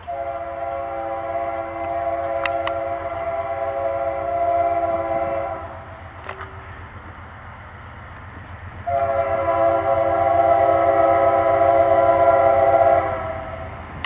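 Diesel freight locomotive's air horn sounding two long blasts, a chord of several steady tones, the first lasting about six seconds and the second starting about nine seconds in and lasting about four, over a low rumble of the approaching train.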